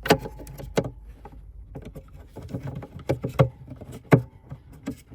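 Hard plastic clicks and knocks as a bulb socket is fitted back into a tail-light housing and worked around to find its position before twisting it to lock. The clicks come irregularly, with the sharpest right at the start and another about four seconds in.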